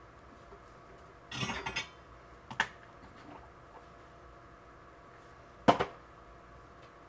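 Small hard objects being handled and set down on a wooden workbench: a brief clattering rattle about a second and a half in, a single click a second later, and a sharp knock near the end, the loudest of the three.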